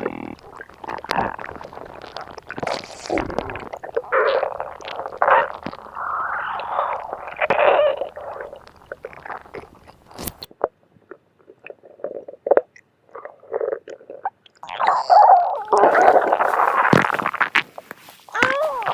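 Stomach gurgling and rumbling sound effect: irregular squishy gurgles in uneven bursts, thinning out to a few scattered gurgles midway, then a louder, busier run of gurgles near the end.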